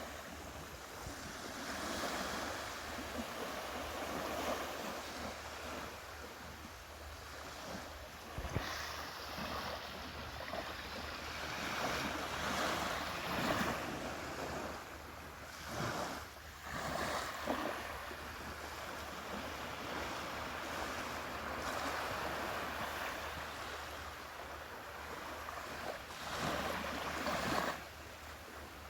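Ocean waves breaking and washing up on a beach, the surf swelling and falling back every few seconds.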